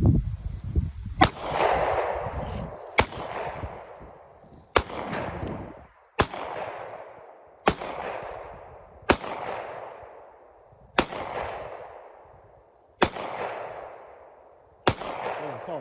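Gunshots fired one at a time at a steady pace: nine shots, about one every one and a half to two seconds, each followed by a long fading echo.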